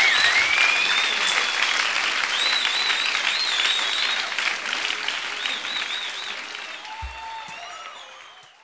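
Concert audience applauding, with high wavering tones over the clapping, fading out gradually until it is gone near the end.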